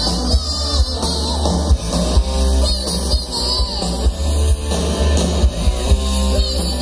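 Live rock band playing: electric guitars over drums and a heavy, steady bass, heard from within the audience.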